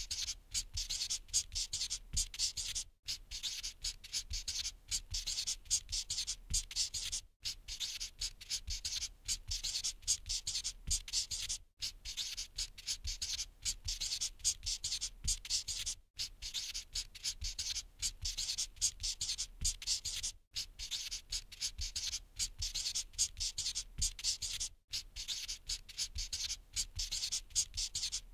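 Marker scribbling on a whiteboard: quick, scratchy drawing strokes, several a second, broken by a brief silent gap about every four and a half seconds.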